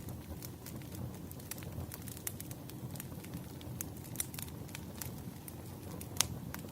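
Campfire burning, a steady low rumble of the flames with frequent sharp crackles and pops of burning wood, one louder pop near the end.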